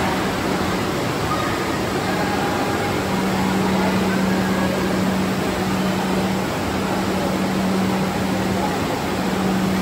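Steady rushing din of an indoor water-park pool hall, water churning and machinery running, with a low steady hum underneath that grows stronger a few seconds in.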